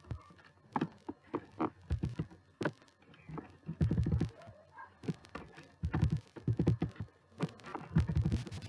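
Computer keyboard typing in short irregular bursts of key clicks, mixed with several louder bursts of low, muffled sound.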